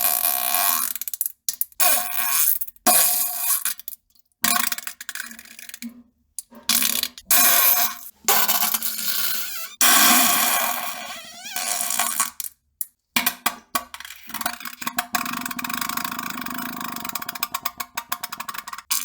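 A run of separate fart sounds, each about one to two seconds long with brief silent gaps between, many with a steady buzzing pitch. The last one lasts several seconds.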